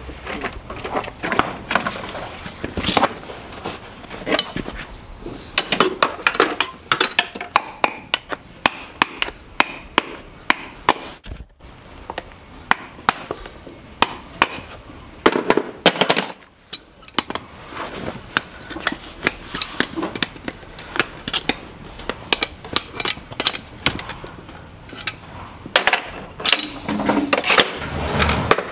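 A farrier's hand tools working on a horse's hoof: a long run of irregular sharp knocks and clicks, denser about halfway through and again near the end.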